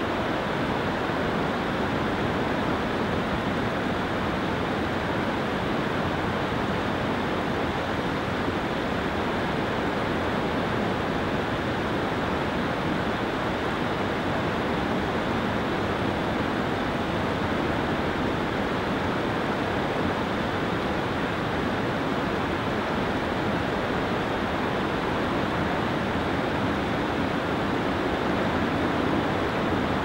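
Steady, unbroken rush of Yosemite Falls running heavy with water.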